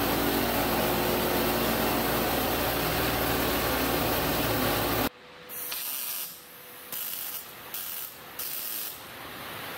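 Pneumatic air nibbler running steadily as it cuts sheet steel, stopping abruptly about five seconds in. Then a string of about six short welding bursts, each a fraction of a second, as the metal is stitch-welded.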